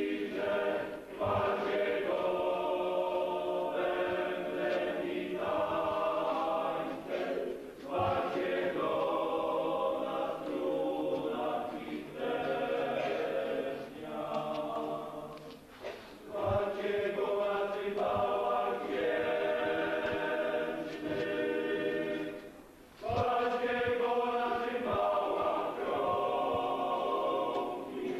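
A choir singing a slow hymn in long held phrases, with a few short breaks between phrases.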